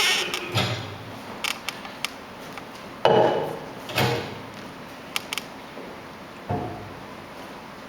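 Sound-effect clicks, knocks and creaks, like handling things in a room: scattered sharp clicks, a louder knock about three seconds in, another about a second later, and a further thud near the end.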